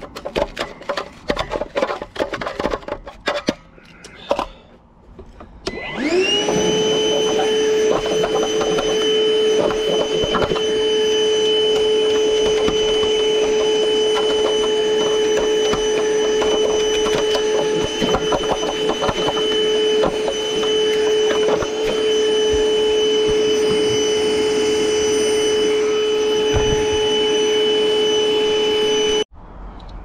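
Metal tool picking and scraping at packed debris for the first few seconds. Then, about six seconds in, a Milwaukee battery-powered vacuum spins up and runs with a steady whine, sucking up the debris around a water heater's anode rod plug. The sound cuts off suddenly near the end.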